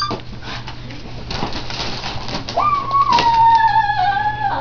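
Rustling and handling noise, then about two and a half seconds in, a long, high, drawn-out wailing cry that slowly falls in pitch.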